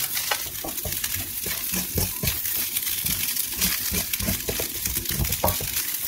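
Fried rice sizzling in a hot wok while a wooden spatula stirs and tosses it, with frequent irregular knocks and scrapes of the spatula against the metal pan over a steady hiss.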